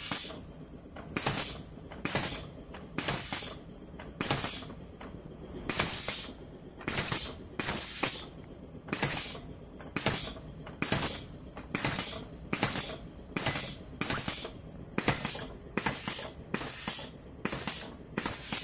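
Prentiss four-poppet drop press converted to a pneumatic cylinder, cycling over and over at about one stroke a second, coming closer together in the second half. Each stroke is a short burst of air from the solenoid-valve-driven cylinder with a knock of the ram.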